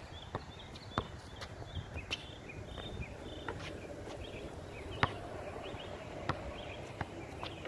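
Basketball bouncing on an outdoor hard court: a few separate sharp thuds, the loudest about a second in and about five seconds in. Birds chirp in short repeated notes throughout.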